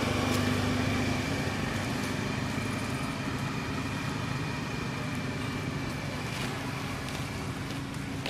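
A steady engine hum, like a motor vehicle running, slowly growing fainter.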